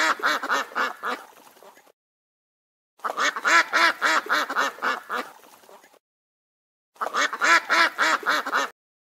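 A duck quacking in three rapid runs of repeated quacks, each run starting loud and fading off, with dead silence between the runs.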